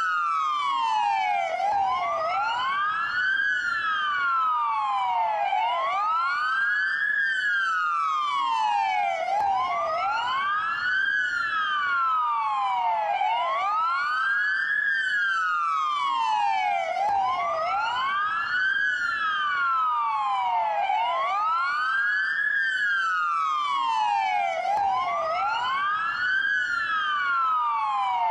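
Dual police wail siren: two siren tones, slightly out of step, each slowly rising and falling about every four seconds in a continuous cycle.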